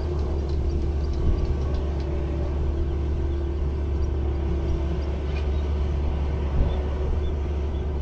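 An engine running steadily: a constant low hum with a steady higher tone over it.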